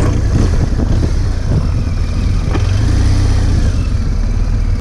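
Adventure motorcycle riding over a rough dirt track, its engine running under a heavy, steady low rumble, with a light knock about two and a half seconds in.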